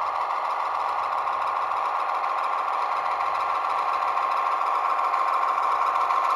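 ESU LokSound 5 sound decoder in a Jouef model SNCF X4700 diesel railcar playing its diesel engine running sound through the model's small speaker as the railcar rolls along the track. The sound is thin, with little bass, and swells slightly near the end.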